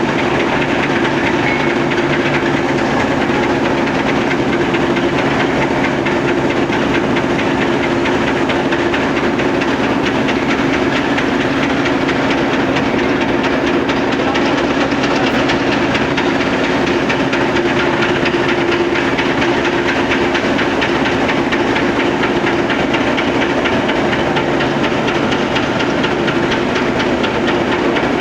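Forging-line machinery running steadily and loudly, a continuous hissing rattle over a constant low hum.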